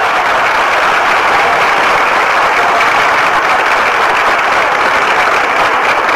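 Large crowd applauding: dense, steady clapping throughout.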